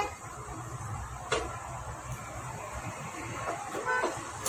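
Metal spanner clinking against a Honda Activa scooter engine: a sharp tap about a second in and another near the end, over a low steady hum.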